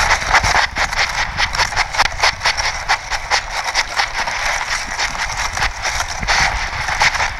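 Grass stems and shrub twigs rustling and scraping against an animal-borne camera while the animal feeds with its head down in the brush: a dense, irregular crackle with many small clicks.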